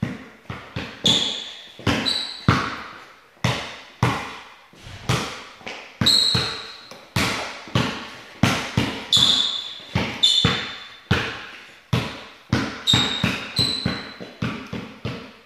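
A basketball being dribbled: sharp bounces at an uneven pace of one or two a second, each ringing out briefly, with short high squeaks between some of them.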